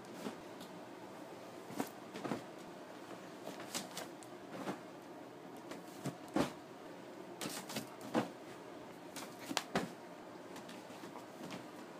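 Pillows and sofa cushions being tossed and set down on a fabric couch: irregular soft thumps with fabric rustling, the strongest about six and eight seconds in.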